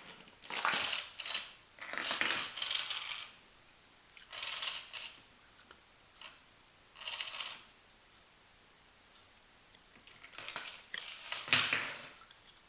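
Kittens playing with a toy on a hard floor: a series of short clattering, rustling bursts as the toy is batted and skitters about. The loudest, with a dull thump, comes near the end.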